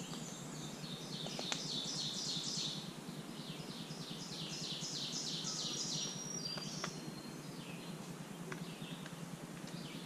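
Songbird singing: two runs of quick, repeated, high down-slurred notes, the first about a second in and the second around the middle, with a few shorter calls between, over a steady low background hiss.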